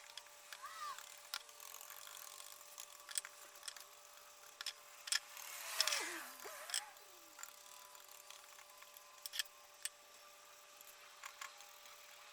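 Faint, scattered clicks and light taps of hand tools working wood, with a brief swell of rushing noise and a falling-then-rising tone about six seconds in.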